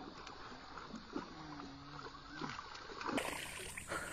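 Faint splashing of a hooked striped snakehead thrashing at the water surface as it is reeled in on a lure.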